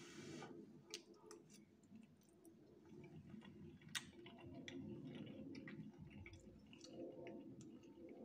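Faint chewing of a mouthful of pasta, with a few small clicks from the mouth.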